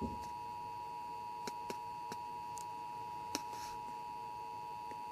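Emergency Alert System attention signal from a television broadcast: a steady two-tone alarm of 853 Hz and 960 Hz sounding together without a break. It heralds an emergency alert, here a severe thunderstorm watch.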